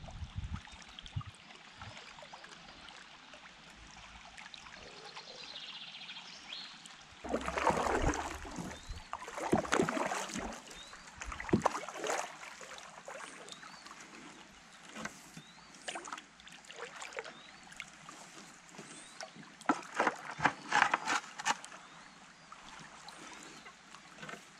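A canoe being paddled: irregular paddle splashes and drips, with a few sharp knocks, most of them in a quick cluster a few seconds before the end.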